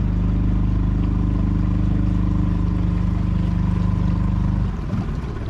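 Boat engine running steadily at a low, even pitch, dropping away sharply near the end.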